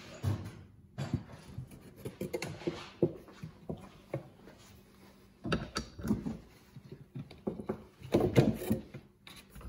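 Metal hand tools knocking and clicking against a wooden workbench and a Yamaha VMax brake caliper as a socket and ratchet are fitted to the caliper bolts. The sharp clicks are scattered, with a busier run of them near the end.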